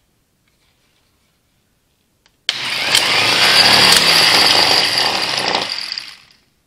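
Allis-Chalmers WD45 field-wound DC starter motor spinning free on the bench, powered from a battery charger. It cuts in suddenly with a click as the clamp touches the terminal, runs with a high whine for about three seconds, then winds down.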